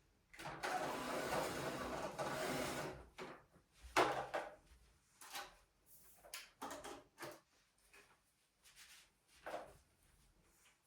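Household tidying sounds. A rough rustling scrape lasts about two and a half seconds, then a sharp knock comes about four seconds in, followed by scattered small clicks, taps and rustles of objects being handled.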